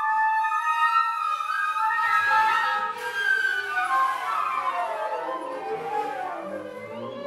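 Contemporary chamber music for shakuhachi, flute, bass clarinet, violin, viola and cello. Held high tones give way about two seconds in to many overlapping sliding, mostly falling pitches over a low sustained note.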